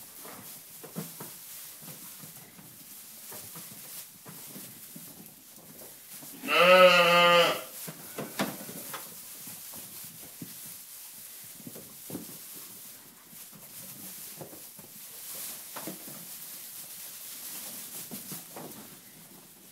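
A Ryeland lamb bleats once, one wavering call about a second long, some six and a half seconds in. Around it, light rustling and taps of small hooves in straw bedding.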